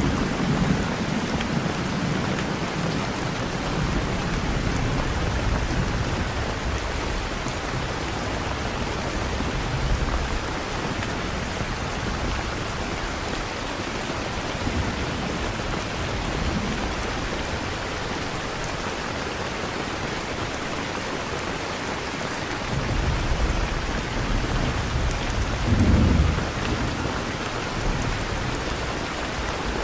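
Steady rain-and-thunder ambience: a continuous rain hiss with low rolls of thunder, one near the start and a stronger one about three-quarters of the way through.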